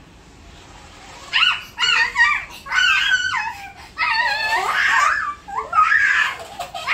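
Two young girls laughing and squealing in high-pitched bouts, starting about a second and a half in after a moment of quiet.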